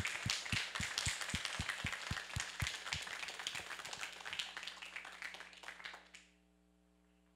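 Audience applauding, with one person clapping close to the microphone at about four claps a second. The applause fades and dies away about six seconds in, leaving only a faint steady hum.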